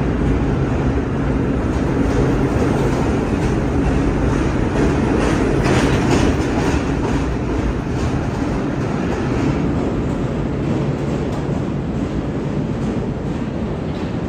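Vintage R1-9 subway train pulling out of the station. The wheels clatter over the rail joints, with a low hum in the first few seconds, and the sound eases off as the train draws away into the tunnel.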